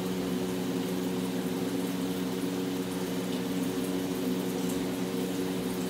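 Steady machine hum with several held low tones, even throughout.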